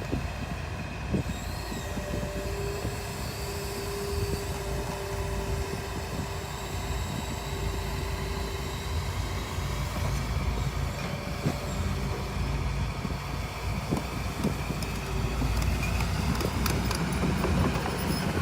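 Crawler excavator's diesel engine running under load as it travels on tracks, with scattered clanks from the steel tracks and a faint steady whine. It gets a little louder near the end.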